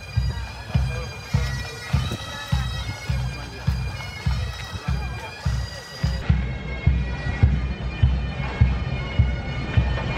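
Military pipes and drums playing a march: the steady drone and melody of bagpipes over a regular bass-drum beat, a little under two beats a second.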